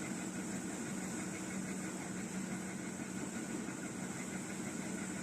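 Steady background hum with a constant low tone and a high hiss, unchanging throughout.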